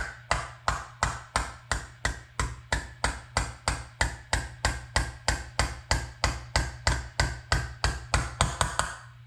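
Small hammer tapping a pin into place through a carburetor's throttle stop: a long run of light, evenly spaced strikes, about three a second, coming a little faster near the end.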